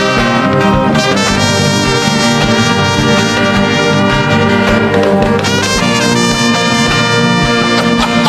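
Instrumental background music led by brass, playing held chords that change every second or so over a steady low beat.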